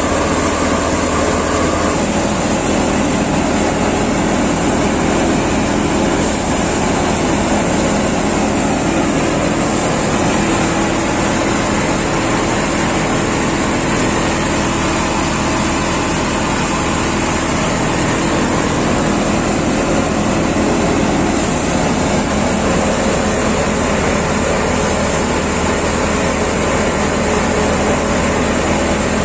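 Prachi paddy thresher running steadily while threshing paddy: a dense, even machine noise with a low hum that does not change.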